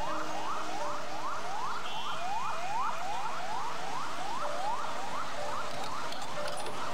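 Electronic siren in yelp mode: a rapid, even run of rising wails, about three a second.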